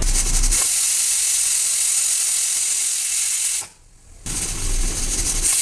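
Butterfly aluminium pressure cooker letting off steam through its weighted whistle vent: a steady high hiss that cuts out briefly a little before four seconds in, then resumes. The cooker is up to pressure and whistling.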